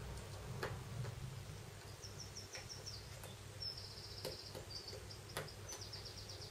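A few sharp little clicks as ribbon-cable connectors are pressed onto a Samsung Galaxy S1 i9000's logic board, over a low steady hum. From about two seconds in, runs of faint, rapid, high chirps.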